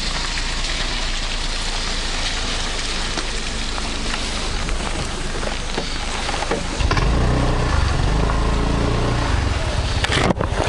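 Honda Lead 125 scooter's single-cylinder four-stroke engine running as it rides slowly over a rough dirt track, under a steady rushing noise. About seven seconds in, the engine note grows louder and deeper as the throttle opens.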